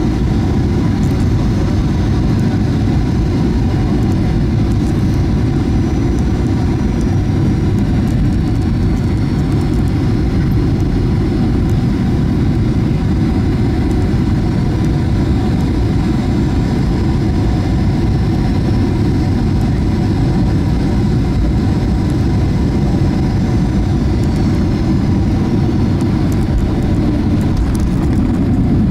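Steady cabin noise inside a Boeing 737-800 on final approach: a loud, even rumble of airflow and its CFM56 engines, with a faint high whine that slowly drifts in pitch.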